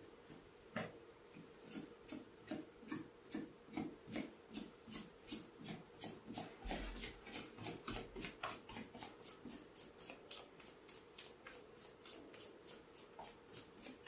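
Rhythmic rubbing strokes of a head and shoulder massage, about three strokes a second, starting about a second in.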